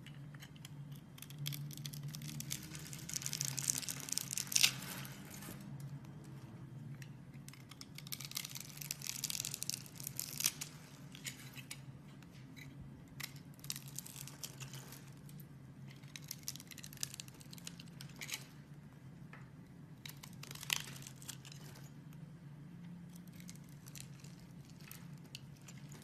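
A blade slicing through a bar of soap scored into a grid, small cubes snapping and crumbling off with a crisp crunching. It comes in several bouts of a few seconds each, with short pauses between.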